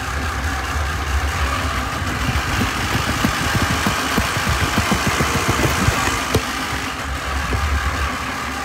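Tractor engine running steadily. From about two to seven seconds in, the low rumble fades back and a louder hiss with rapid knocking comes up, with a single click near the end of that stretch.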